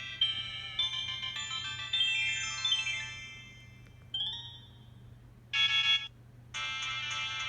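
Sanyo Katana ringtones, converted to MIDI, playing on a Kyocera Cadence phone. One synthesized ringtone melody ends in a falling run of notes a few seconds in. Two short tones follow, and a new ringtone starts near the end.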